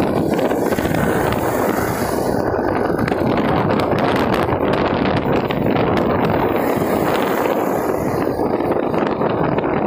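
Steady rushing wind on the microphone mixed with road and vehicle noise from travelling along a road at speed.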